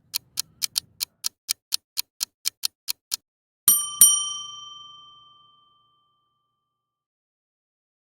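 Clock ticking at about four ticks a second for three seconds, then a bell struck twice in quick succession and ringing out: a ticking-clock and ding sound effect.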